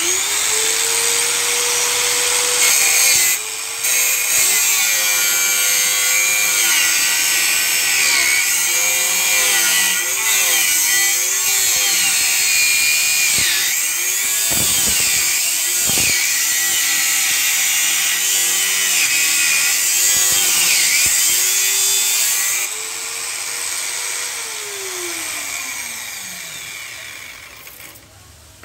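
Angle grinder clamped in a cut-off stand switched on and spinning up, then its abrasive cut-off disc grinding through a steel square tube, with a loud, harsh grinding hiss over a motor whine that sags and wavers under load. Near the end the disc breaks through, the grinder runs free for a moment, then is switched off and winds down with a falling pitch.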